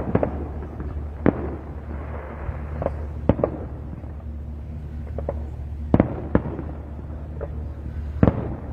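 Fireworks display: aerial shells bursting in a series of sharp bangs, irregularly spaced, about eight in all, with crackling after the first few, over a steady low hum.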